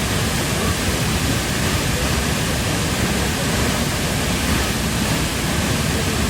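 Waterfall: falling water rushing in a loud, steady, unbroken roar of noise.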